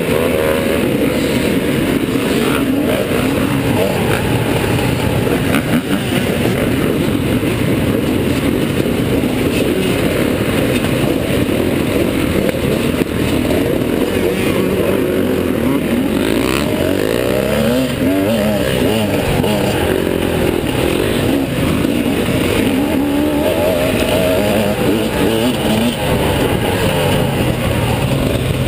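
Many off-road dirt bike engines running together in a pack, idling and blipping their throttles, with several bikes revving up and down at once about halfway through. The bikes pull away near the end.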